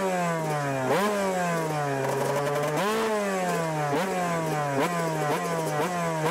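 Two-stroke Yamaha YZ motocross bike engine revved in a series of quick throttle blips. Each one jumps up sharply and falls back toward idle, and they come quicker in the last couple of seconds.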